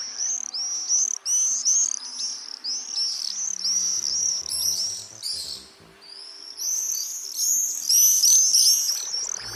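A flock of common swifts screaming: many shrill, arching screeches overlapping one another, in two loud bouts with a brief lull just past the middle.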